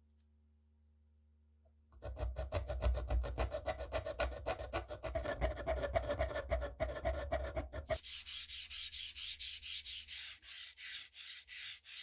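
Rapid back-and-forth abrasive hand strokes, several a second, starting about two seconds in; about six seconds later they change to a higher, hissier scraping stroke.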